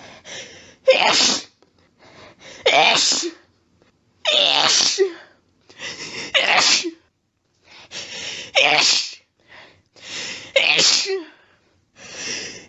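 A series of about six sneezes, roughly two seconds apart. Each starts with a short build-up breath and then breaks into a loud sneeze.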